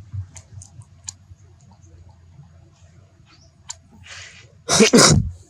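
Baby monkey crying: two loud, wavering cries near the end, after a few seconds of faint scattered clicks.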